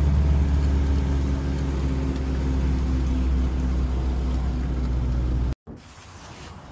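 Vehicle engine running while driving, heard from inside the cab: a steady low drone. It cuts off abruptly about five and a half seconds in, leaving quieter outdoor background.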